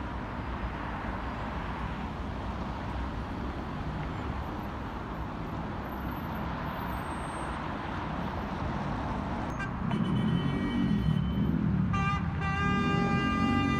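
Road traffic on a busy city avenue, a steady hum of car engines and tyres. About ten seconds in it grows louder as a vehicle passes close. Near the end a car horn sounds and is held for a couple of seconds.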